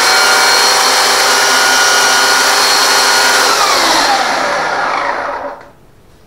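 Titan TTL758CHN 2000 W electric chainsaw running at full speed with no load, run over a board to check that the chain oiler is working. About three and a half seconds in the trigger is released and the motor winds down with a falling whine, the chain stopping about two seconds later.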